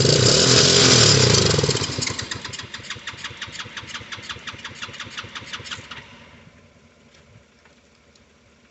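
Small 110cc ATV engine being cranked over. It runs in a quick, even chugging rhythm, with a louder sputter in the first two seconds as it tries to fire. The cranking fades and stops about six seconds in without the engine catching, which the owner puts down to a dirty carburetor not getting enough fuel.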